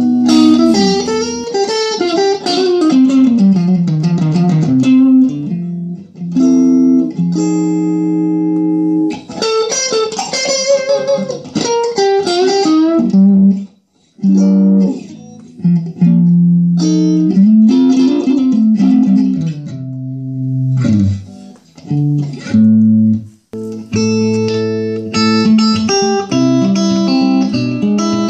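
Electric guitar played through a 6V6-powered 20-watt 1x12 valve combo amplifier: single-note lead lines with bends and slides, with a couple of short breaks, moving to fuller chords near the end.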